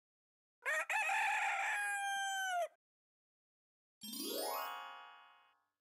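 A rooster crows once, a single call of about two seconds that rises, holds and drops off at the end. About four seconds in, a short chime sweeps upward in pitch and rings out, fading over about a second and a half.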